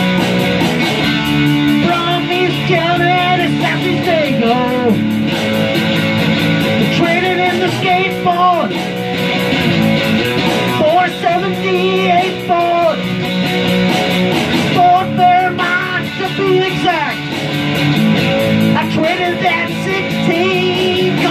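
Electric guitar playing rock lead lines full of bent and wavering notes over a steady rock backing groove.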